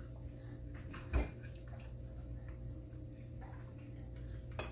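Fork clicking against a plate during a meal, with a sharp knock about a second in and another near the end, over a steady low hum.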